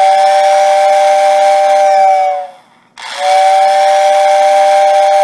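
Lionel postwar 6020W whistle tender's motor-driven whistle blowing a steady two-note chord with an airy hiss, in two blasts with a short break about two and a half seconds in. The whistle motor, freshly cleaned, re-soldered and tuned, is working as intended with the tender's shell back on.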